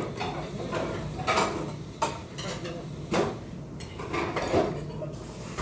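Stainless steel chopsticks and spoon clinking and scraping against a bowl, with about half a dozen sharp clicks spread irregularly, while a person eats soup from it.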